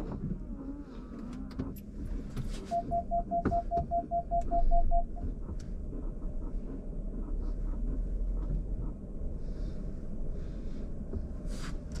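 Inside the cabin of a 2020 Chrysler Pacifica Hybrid, a low steady hum from the car plays under a run of about a dozen quick, evenly spaced electronic chime beeps, about three to five seconds in. Scattered light clicks are heard too.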